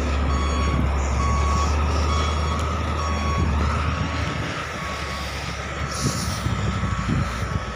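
Reversing alarm on heavy earthmoving machinery beeping about once a second, over the low drone of diesel engines that eases about halfway through.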